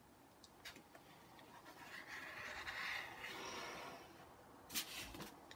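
Faint scratching of a pen drawing on paper, steady for a couple of seconds in the middle, with a few light taps and a sharper click near the end.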